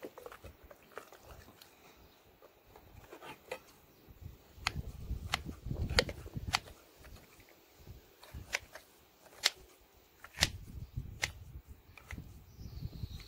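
Kitchen scissors snipping through the gut membranes of a fish being cleaned: a series of sharp, irregular snips, most of them in the second half, with soft wet handling of the innards between them.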